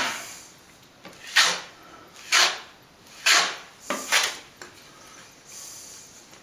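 A plastering blade scraping wet white plaster across a wall patch in short strokes, about one a second, with a softer, longer smoothing stroke near the end, spreading a thin second coat.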